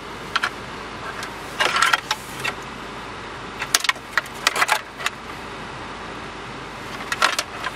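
Plastic wiring-harness plugs and loose wires rattling and clicking against the plastic surround of an empty radio slot as they are pulled out and pushed back. The clicks come in several short bursts over a steady low hum.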